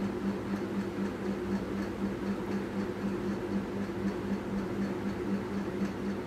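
Eggs and sugar being mixed by hand in a steel pot: soft wet churning with faint ticks, over a steady low hum with a fast regular pulse.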